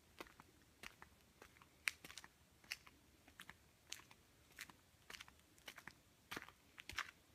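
Faint footsteps crunching at an even walking pace, about three steps every two seconds, on a gritty dirt path strewn with dry leaves.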